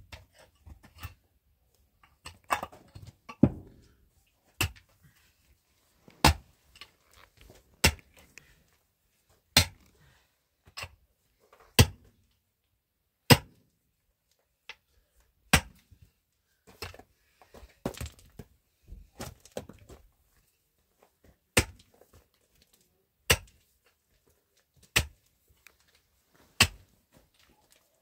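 Pickaxe striking hard, stony dirt over and over, a sharp strike about every one and a half to two seconds, with smaller knocks and soil and stones scraping and crumbling between strikes.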